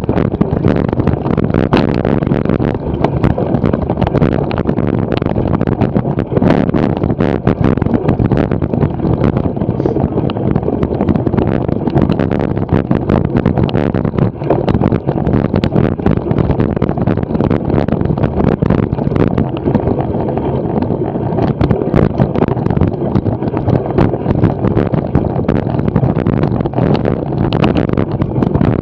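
Wind rushing over the microphone of a camera on a cyclocross bike ridden over a dirt and sand course, with steady tyre noise and frequent knocks and rattles as the bike bounces over rough ground.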